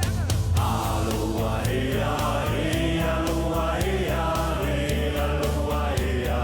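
Background music: voices singing a melody over a steady beat.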